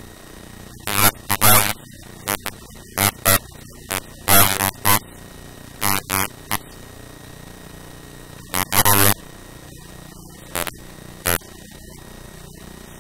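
Pen writing numbers on paper close to the microphone: short scratchy strokes in irregular clusters with pauses between them, over a steady low hum.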